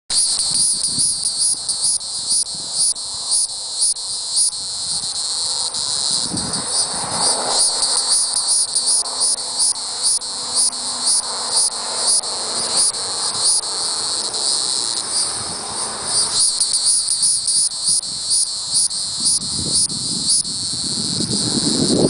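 Hieroglyphic cicada (Neocicada hieroglyphica hieroglyphica) calling: a loud, high buzz that pulses evenly about twice a second.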